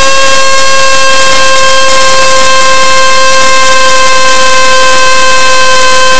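RTF 2206-2150kv brushless motor, driven by a LittleBee 20A ESC, spinning a 6x4.5 propeller on a thrust stand at its top throttle step. It makes a loud, steady, high whine with a stack of overtones, holding one pitch.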